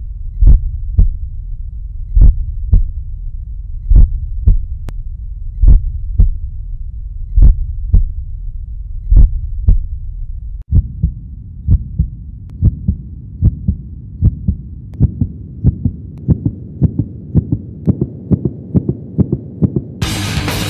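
Heartbeat sound effect: pairs of deep thumps over a low hum, slow at first, then quicker and a little higher-pitched from about halfway through. Rock music comes in just before the end.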